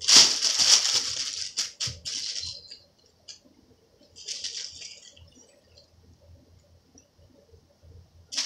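A large thin plastic bag crinkling and rustling in bursts as a cat pounces on it and paws into it: the loudest burst is in the first two seconds, with a shorter one about four seconds in.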